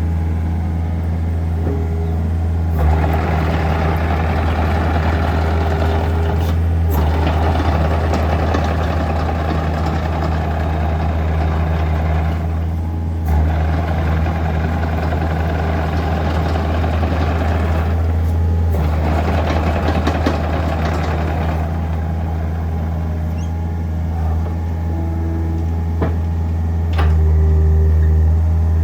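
Kobelco SK50SR-5 mini excavator's diesel engine running steadily, with the hydraulics working in several stretches of a few seconds each that add a rushing hiss over the engine as the machine is operated. The engine gets a little louder near the end.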